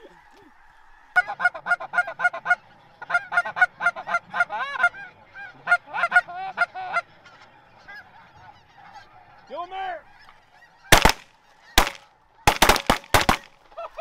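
Geese honking in quick runs of short calls, then a rapid volley of about six shotgun blasts near the end.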